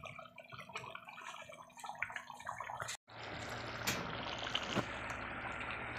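Thick chicken curry gravy simmering and bubbling in a pan on a gas stove, with small bubbles popping irregularly. The oil layer (tari) is starting to rise, a sign the curry is done. About halfway through, the sound cuts out for an instant, then carries on as a steadier hiss with occasional pops.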